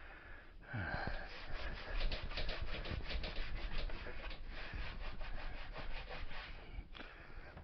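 Rapid back-and-forth scrubbing on a mobility scooter during cleaning, several strokes a second, starting about half a second in and stopping near the end.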